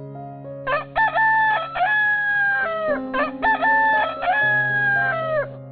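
Rooster crowing twice, each cock-a-doodle-doo about two seconds long, over soft background music with held notes.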